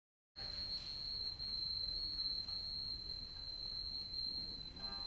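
A steady high-pitched whine over low rumbling noise. Faint music begins near the end.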